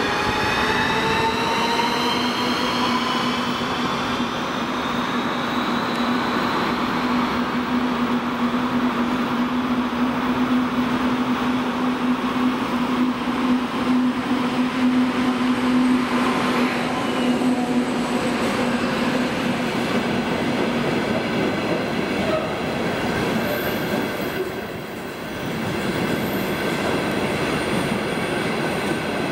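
A 2TE25KM twin-section diesel locomotive approaching and running past with a train of enclosed car-carrier wagons. A steady diesel engine drone lasts for about the first twenty seconds, with a rising whine over the first few seconds. After that the rolling rumble of the wagons' wheels on the rails takes over.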